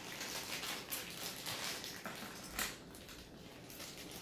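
Small plastic Playmobil toy parts being handled and fitted together by hand: light rustling and clicking, with one sharper click about two and a half seconds in.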